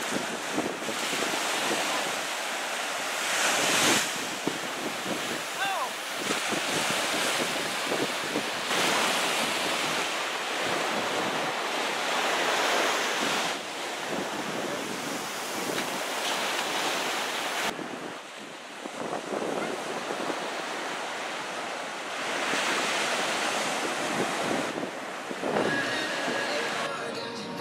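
Ocean surf breaking and washing up on a sandy beach in waves that swell and ebb every few seconds, with wind buffeting the microphone.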